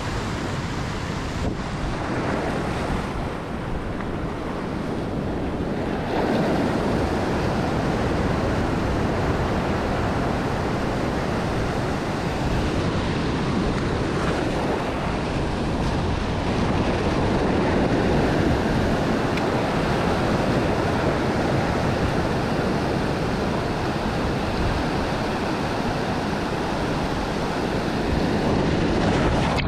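Heavy surf breaking and foaming over rocky volcanic shoreline, a continuous rush of water that grows louder about six seconds in.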